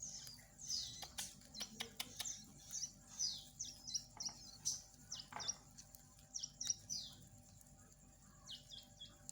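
Hand-fed nestling songbirds chirping: a busy run of short, high, falling cheeps, several a second, with a few soft clicks about one to two seconds in.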